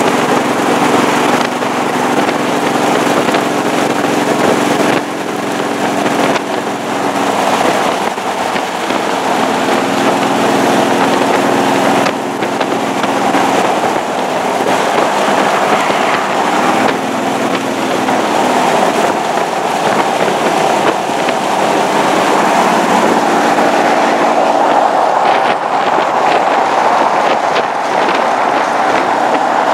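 Open hot rod's engine running steadily at cruising speed, its drone shifting slightly every few seconds, under loud rushing wind and buffeting on the microphone.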